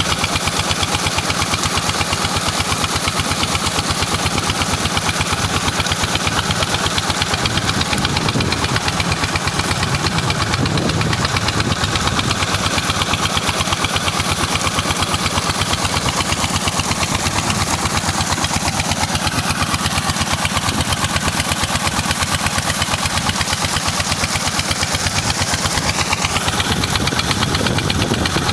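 Small petrol engine of an Alkon-type pump, used to suck up sand, running steadily with a fast, even firing beat.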